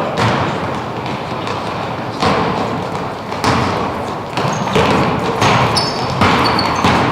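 Basketball bouncing and thudding on a hard court, five or six separate thuds a second or so apart.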